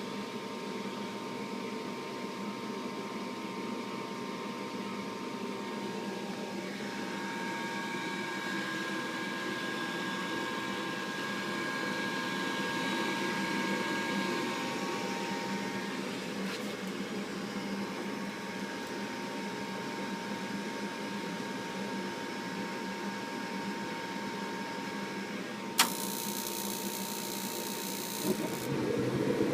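Gas furnace going through its start-up: a steady motor hum with thin whining tones, a sharp click about 26 seconds in, a few seconds of high hiss, then the burners catching with a low rush near the end. This furnace starts only after being hit on its side.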